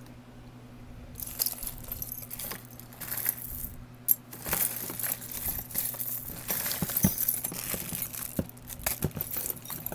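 Costume jewelry jingling and clinking as hands rummage through a plastic tub of jewelry. It starts about a second in and goes on as a busy run of small metallic clicks and rustles.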